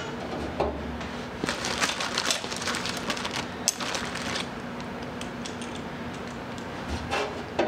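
Light clicks, taps and scrapes of a thin aluminium strip being handled and set against the car's steel roll cage and sheet-aluminium dash panel, busiest between about one and a half and four and a half seconds in, over a steady low hum.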